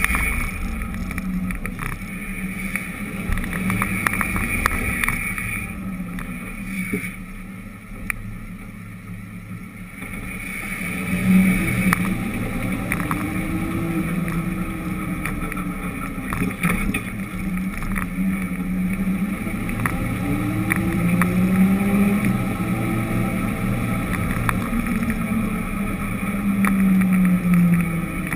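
Vehicle engine running while driving along a street, its pitch rising and falling as it speeds up and slows; it turns quieter for a few seconds about a quarter of the way in.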